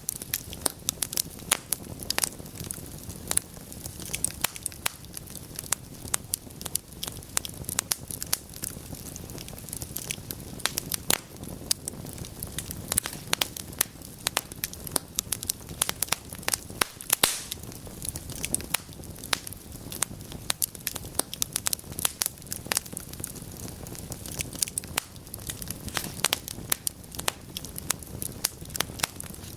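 Wood fire burning in a fireplace: logs crackling with frequent, irregular sharp pops over a steady low rushing of the flames.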